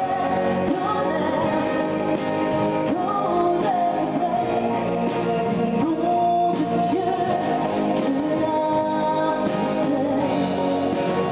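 A woman singing a melody with long held notes into a microphone, with band accompaniment, performed live on stage.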